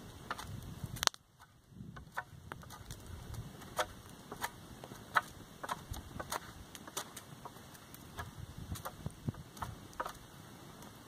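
Knife shaving bark off a spruce pole beside a crackling campfire: irregular sharp clicks and snaps, a few a second, with one louder snap about a second in.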